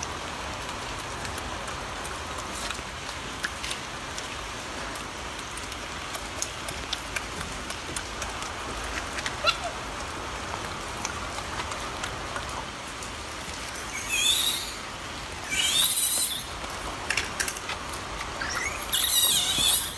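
Golden snub-nosed monkey eating fruit, with small chewing clicks over a steady background hiss. Near the end come three loud, high-pitched chirping bursts with wavering pitch.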